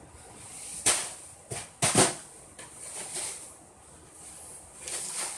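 Knocks and clunks of things being handled in a high kitchen cupboard as someone reaches up into it. There are two sharp, loud knocks about one and two seconds in, then a few softer clunks.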